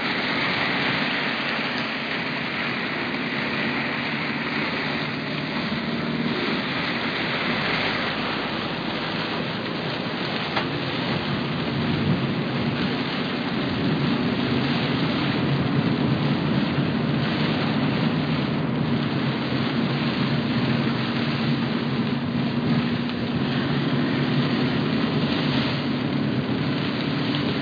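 Heavy rain beating on a moving car, heard from inside the cabin, with tyres hissing on the flooded road; the steady rush grows louder about halfway through.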